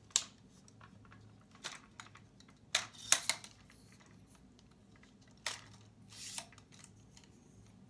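Metal tripod legs and their adjustment locks clicking and knocking as they are handled, lengthened and closed: scattered sharp clicks, a quick run of three about three seconds in, and a short sliding scrape a little after six seconds.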